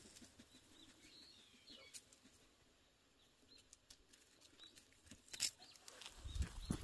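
Faint footsteps and dog paws scuffing on a paved road, with a few faint bird chirps early on and louder scuffs near the end.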